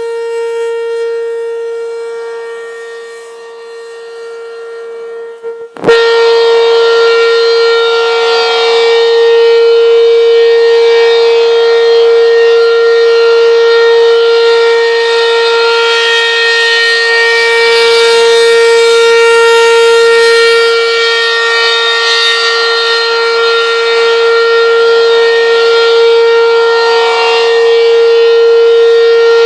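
Outdoor tornado warning siren sounding a steady, unwavering tone, swelling and fading at first. About six seconds in there is a sharp click, after which the siren is much louder and stays steady.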